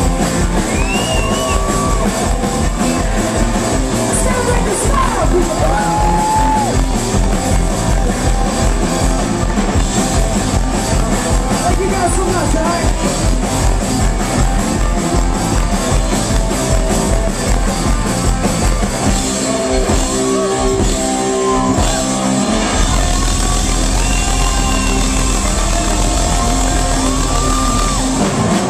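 Live rock band playing loud through a stage PA: drum kit, electric bass and electric guitars, with sung vocals gliding over the top. The drum beat thins out about twenty seconds in while the bass and guitars hold on.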